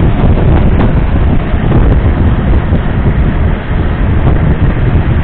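Loud wind buffeting the microphone over the steady drone of a longtail boat's big diesel engine running at speed, with water rushing past the hull.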